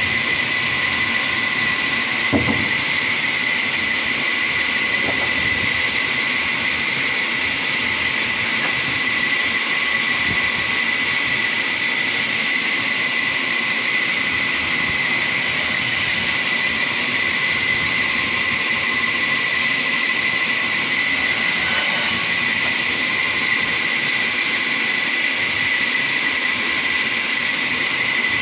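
Sawmill saw running steadily with a constant high whine over machine noise, and a single knock about two seconds in.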